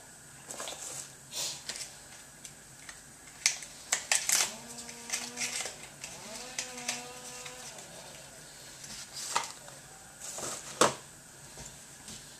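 Kitchen handling sounds: scattered clicks, knocks and rustles of cartons and a butter box being picked up and opened, the loudest near 4 s and 11 s. Two short steady tones, each about a second long, come in the middle.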